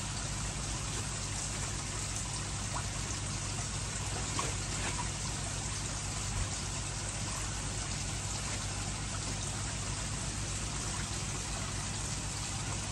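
Steady trickle and splash of water running into a koi pond, over a low steady hum.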